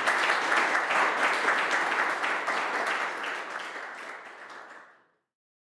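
Audience applauding, a dense patter of many hands clapping that grows fainter and stops about five seconds in.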